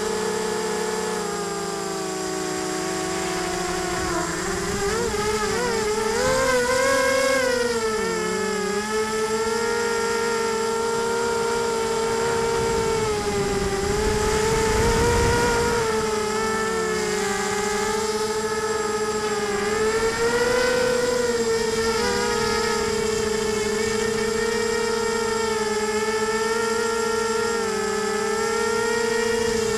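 Tarot 250 quadcopter's electric motors and propellers whining, heard from the onboard camera, the pitch rising and dipping with throttle and wobbling quickly a few seconds in. A short spell of low rushing noise comes about halfway through.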